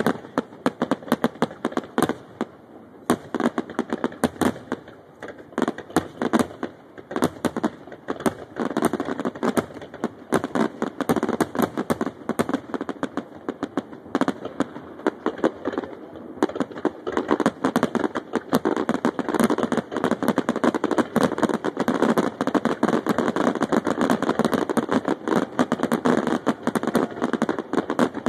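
Aerial fireworks display: shells going off in rapid, overlapping succession with dense crackling. The bursts come thicker and louder from about seventeen seconds in.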